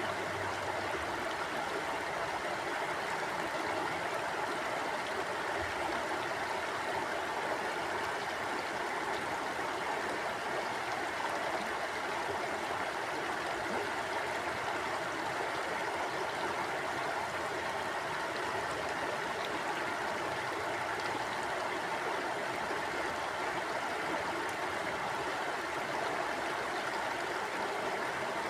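A small stream flowing steadily over stones, an even rushing and gurgling of water.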